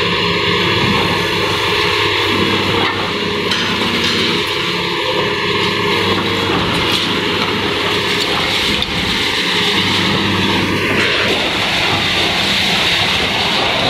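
Caterpillar 320B hydraulic excavator's diesel engine running steadily under load as it tears at a concrete building, with a few knocks and crunches from breaking concrete and steel.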